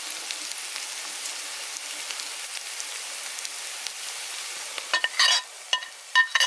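Sliced onions, green chillies and curry leaves sizzling steadily as they fry in a metal kadai. About five seconds in, a steel ladle starts clinking and scraping against the pan and a plate as grated coconut is added.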